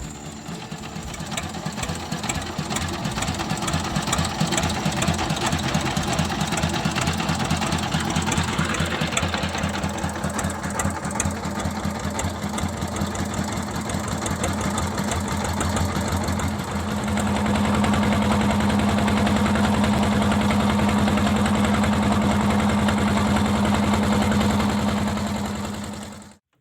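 Boat engine running with a fast, even knocking beat. About two-thirds of the way in it picks up to a steadier, higher drone, then stops abruptly near the end.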